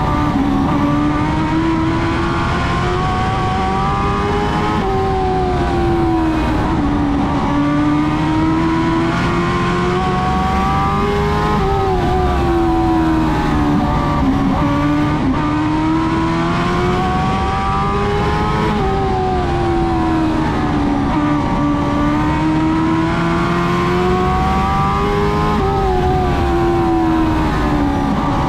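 Dwarf race car engine running hard under racing load, its pitch rising and dropping again in a regular cycle about every seven seconds as the car accelerates and backs off lap after lap.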